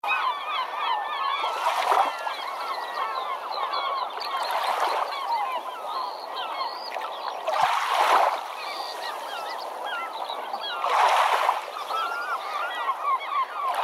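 A large flock of birds calling and chattering continuously, many short overlapping calls at once. Broad swells of wash, like waves surging, rise about every three seconds.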